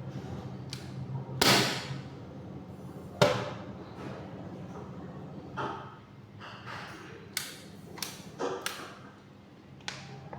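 Hard blows and clattering knocks, the kind a ceiling fan makes as it is smashed apart, about eight in all. The two loudest come about one and a half and three seconds in, each with a short rattling tail, over a steady low hum.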